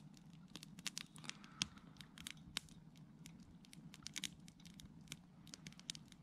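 Small wood campfire crackling, with irregular sharp pops and snaps, several close together at times.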